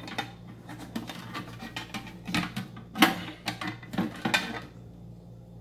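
Removable shelf being worked into a small steel pistol safe: a run of irregular metal clanks, clicks and scrapes, loudest about three seconds in.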